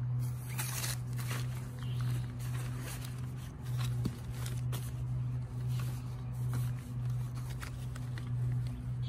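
Nylon tent fabric rustling, with light clicks and scrapes as a tent pole end is worked into a plastic hub, over a steady low hum.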